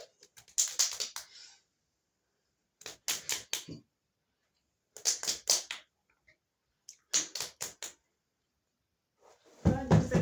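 Four short bursts of rapid clicking about two seconds apart, with dead silence between them. Music with a beat comes in near the end.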